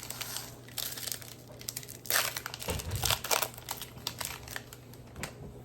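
Wrapper of a Bowman baseball card pack being torn open and crinkled by hand, in several irregular bursts over a faint steady hum.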